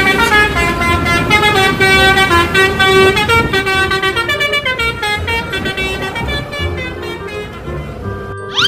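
Bus 'telolet' horn, a set of musical air horns, playing a loud tune of quick stepped notes, several tones sounding together, with a low rumble beneath. It fades a little over the second half.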